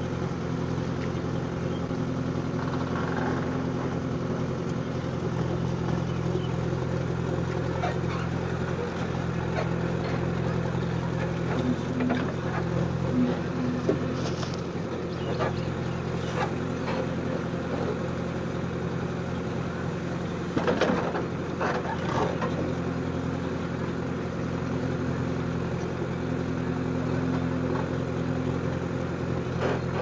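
JCB 3DX backhoe loader's diesel engine running steadily while the backhoe arm digs, with a tone that comes and goes as the hydraulics work. A few sharp knocks and scrapes come in the middle, loudest about two-thirds of the way in.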